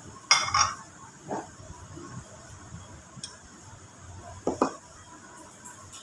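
Ceramic bowls clinking against each other and against plates as they are stacked on a table: a loud clatter near the start, a lighter knock about a second later, and a quick double clink about four and a half seconds in.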